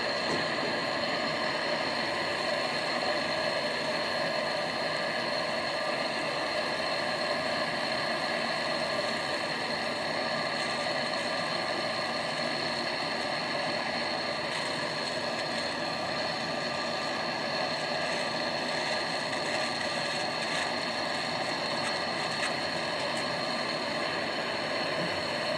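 Steady machine running noise, an even hum with several constant tones that hold without change.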